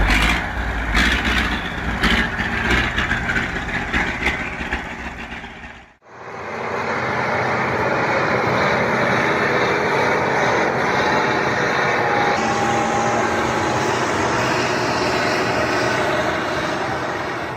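Heavy vehicle engines running. For the first six seconds there is a low rumble with repeated clanks and knocks; then an abrupt cut, after which a steady, even engine noise runs without change.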